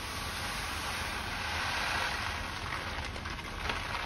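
Uncooked rice grains pouring from a bag into a wooden box, a steady hiss that swells to its loudest about two seconds in and then eases.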